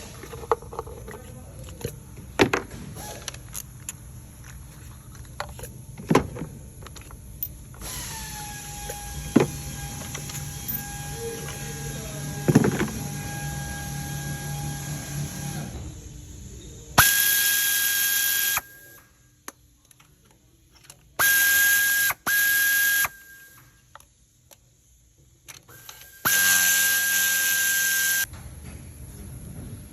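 Hand-tool work on an engine: scattered metallic clicks and knocks over a low hum. Then four loud hissing bursts of about one to two seconds each, with short quiet gaps between them.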